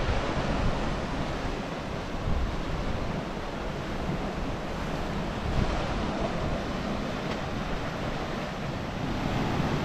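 Sea waves washing against rocks, a steady rushing wash, with wind buffeting the microphone.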